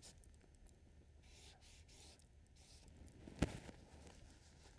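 Faint brush strokes on an oil-painting canvas, a soft scratching and rubbing, with one sharp click about three and a half seconds in.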